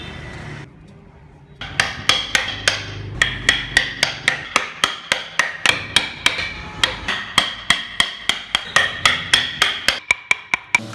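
Hammer blows in woodworking: a fast, even run of sharp strikes, about three or four a second, each with a short metallic ring. The strikes begin about a second and a half in and stop near the end.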